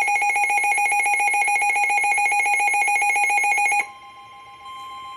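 Weather alert radio's built-in alarm sounding, a loud high-pitched warble of rapid pulses, which cuts off suddenly about four seconds in. A quieter steady single tone carries on after it: the weather radio warning alert tone that precedes the broadcast warning.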